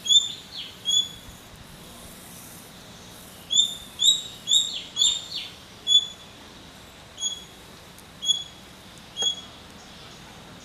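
A small bird chirping: short, high single notes, a quick run of five or six about four to six seconds in, the rest spaced a second or more apart.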